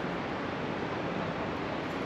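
Creek water rushing steadily: an even, unbroken hiss.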